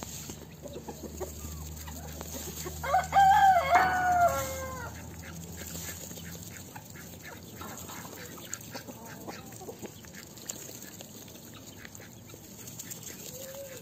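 A rooster crows once, loudly, about three seconds in, the call dropping in pitch at its end. Hens cluck softly, with small pecking clicks, throughout.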